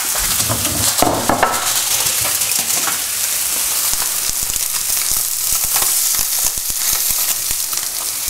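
Oil sizzling and crackling steadily in hot frying pans as strips of stir-fry vegetables and sea bass fillets fry, with a few knocks about a second in.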